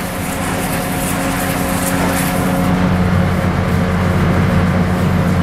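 A bin-washing truck's high-pressure hot-water washer running: a steady pump-and-engine hum under the hiss of water from spinning spray heads washing the inside of a trash bin.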